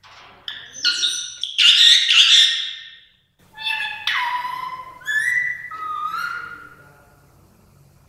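Female rose-ringed (ring-necked) parakeet calling: a burst of loud, harsh screeches, then after a brief pause a run of clearer whistled notes, some held and some gliding, that fade out near the end.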